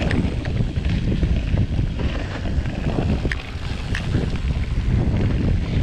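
Orbea Occam mountain bike rolling fast down a dirt forest trail: steady tyre and frame rumble with wind buffeting the handlebar camera's microphone, and a couple of sharp clicks a little past the middle as the bike jolts over the ground.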